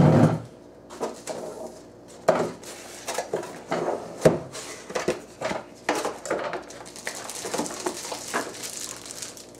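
Unboxing handling noise: a heavy thump at the start, then knocks and scrapes as a cardboard box is opened. Near the end, a plastic bag crinkles as a wrapped speaker is lifted out.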